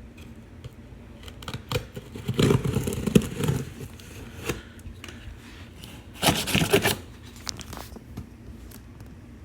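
Cardboard packaging scraping, rustling and tearing as a computer tower case is worked out of its box, in irregular bursts, loudest from about two seconds in and again just after six seconds.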